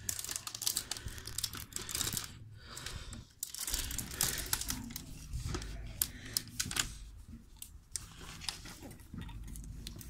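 Irregular small clicks and rubbery scrapes as a tire-plug insertion tool is worked back out of the puncture in a car tire's tread, leaving the plug in place. A low steady rumble runs underneath.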